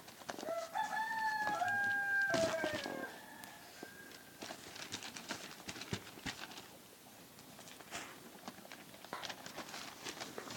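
A rooster crowing once: one long call about two and a half seconds long that rises, holds and falls away at the end, followed by faint scattered ticks and rustles.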